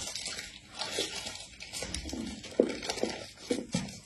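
Paper liner crinkling in short rustles and clicks as it is handled and peeled from a snow-skin mochi, then mouth sounds of biting into the soft mochi near the end.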